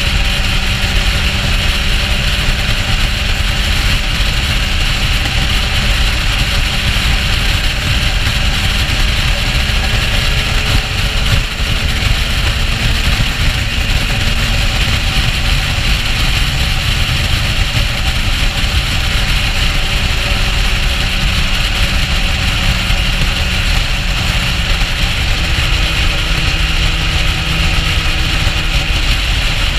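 Motorcycle cruising at steady highway speed: a continuous rush of wind and road noise over the engine's hum, which rises and falls a little in pitch now and then.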